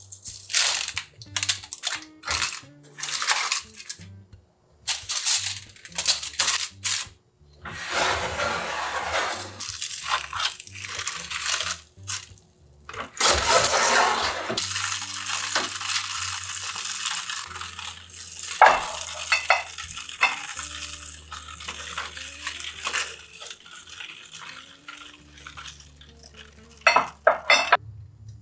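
Kitchen cooking sounds: a seasoning shaker shaken over food in foil trays, a gas range's fish-grill drawer handled, and dishes clinking as food is plated, over soft background music.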